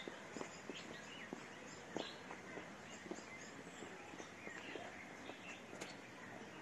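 Small birds chirping and twittering in many short calls, with faint irregular taps.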